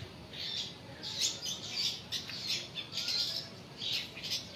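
Small birds chirping in quick succession, many short calls overlapping.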